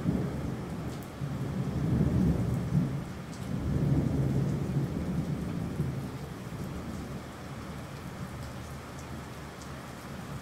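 Rolling thunder rumbling over steady rain. The rumble swells in the first half and dies away after about six seconds, leaving the rain's hiss.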